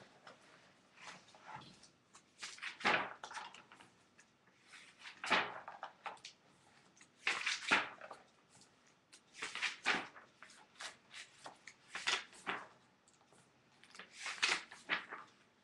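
Paper rustling as the pages of a large book are turned and handled, a swish about every two seconds.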